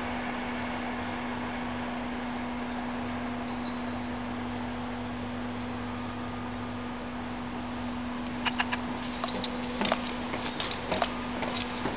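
A steady low hum under a background hiss. From about eight seconds in comes a run of sharp clicks and knocks: footsteps on a steel walkway.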